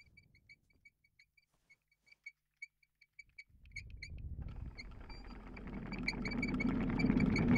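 Quick, light, high-pitched ticking at about four to five a second, then from about halfway through the low rumble of an approaching train on the tracks, growing steadily louder.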